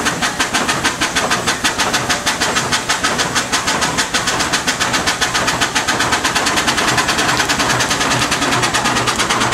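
1904 American LaFrance steam fire engine pumping: its steam cylinders exhausting in a rapid, even chuff, several beats a second.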